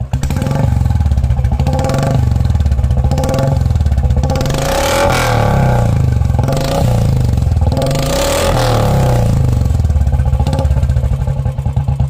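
BS4 Royal Enfield Bullet's single-cylinder engine running at idle with a steady beat from the chrome exhaust, its throttle blipped twice, about four and eight seconds in, each rev rising and then dropping back to idle.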